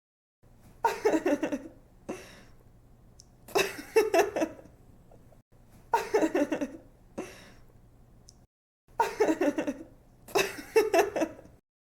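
Young woman giggling in five bursts of laughter, each a quick run of 'ha-ha' pulses falling in pitch, with short pauses between.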